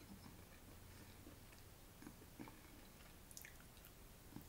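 Faint eating sounds: soft chewing with a few small mouth clicks, and a bite into a slice of pizza near the end, over near silence.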